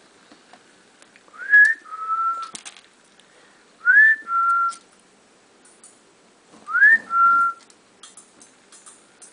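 A person whistling a two-note call three times, about every three seconds: each a quick rising slide followed by a short level note, as if calling the puppies to get their attention.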